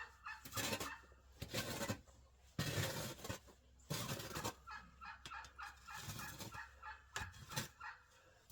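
A shovel scraping and digging into packed chicken-pen compost several times, with poultry calling in quick runs of repeated notes between the strokes.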